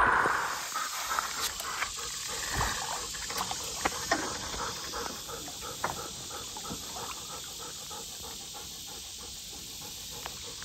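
Light plops and ticks of small disturbances at a pond's still surface, scattered and quick in the first half, then fainter and more regular, over a steady hiss.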